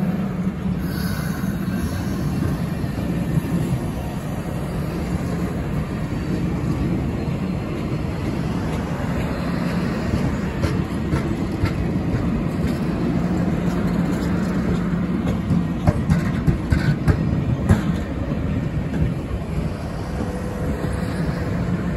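Stainless-steel passenger cars of a Cuyahoga Valley Scenic Railroad train rolling past a grade crossing: a steady rumble of wheels on rail, with a few sharp clicks from the wheels a little over two-thirds of the way through.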